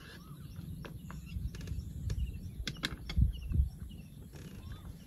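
Outdoor rural ambience: birds chirping faintly over a steady low rumble, with a few sharp clicks, about a second in and again near three seconds.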